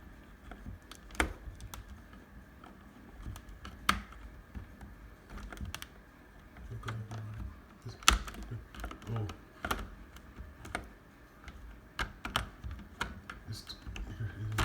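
Irregular small plastic clicks and taps from handling a smoke detector and its battery while the battery is swapped. The loudest knock comes about eight seconds in.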